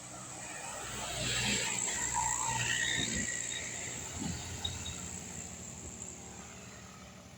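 A road vehicle passing by: its engine and tyre noise swell over the first two seconds or so, then slowly fade, over a steady high-pitched hiss.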